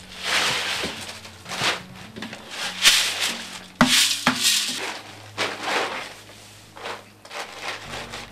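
Soaked red sorghum grain poured out of an aluminium basin onto a plastic sheet and swept across it by hand, in rushing swishes with plastic rustling and a knock of the basin about four seconds in. The wet grain is being spread on plastic to sprout, the malting step in making tchoukoutou.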